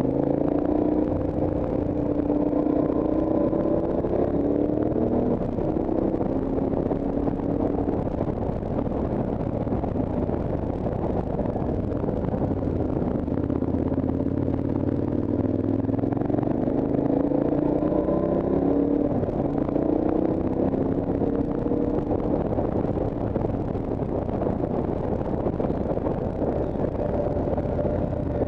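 Motorcycle engine under way, its revs climbing and easing off in two waves, over a steady rush of wind.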